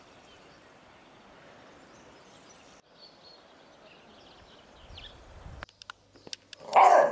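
Faint outdoor background with a few faint bird chirps. A short, loud sound comes near the end.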